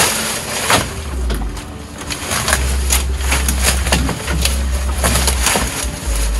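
Fresh leafy branches rustling and crackling as they are pushed into a slatted bamboo feed trough, with repeated sharp crackles and knocks against the bamboo, over an uneven low rumble.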